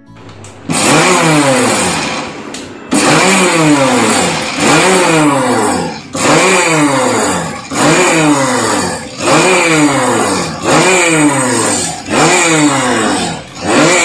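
Kenstar mixer grinder whipping curd and powdered sugar in short pulses: about nine runs of the motor, the first about two seconds long and the rest about one and a half seconds each. In each run the pitch rises as the blades spin up and falls as they slow down.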